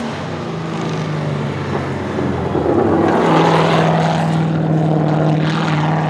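Drift car's LS7 V8 engine held at a steady high note while the car slides on the throttle, with tyre noise; it grows louder about halfway through.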